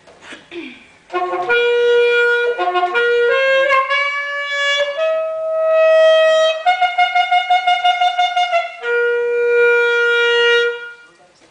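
Solo saxophone playing a short melodic phrase of held notes, starting about a second in. One note in the middle is pulsed rapidly, and the phrase ends on a long held note.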